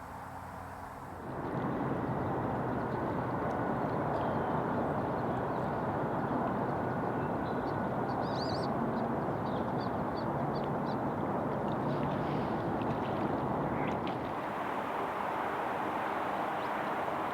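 Steady outdoor background noise with faint, short, high bird chirps scattered through the middle; the background changes abruptly twice, at clip cuts about a second in and near the end.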